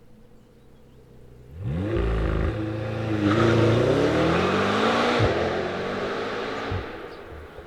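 McLaren GT's twin-turbo V8 accelerating hard: the engine sound comes in suddenly about a second and a half in, its pitch climbing, then drops sharply and fades away near the end.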